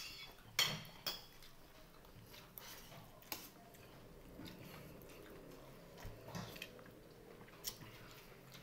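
Sounds of eating with the hands from a plate: a few sharp clinks of dishes, the loudest in the first second or so, with soft chewing between.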